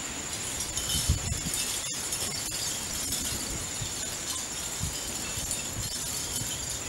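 Backyard ambience: a steady, high-pitched insect trill, typical of crickets, with scattered faint low thumps, one louder about a second in.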